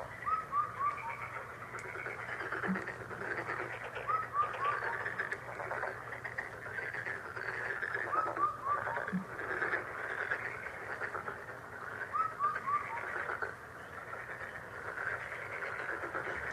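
Frogs croaking in a steady chorus. A short run of four falling notes repeats about every four seconds.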